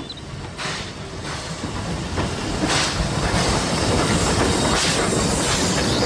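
Steam locomotive running, its exhaust beating out repeated chuffs over a steady hiss of steam.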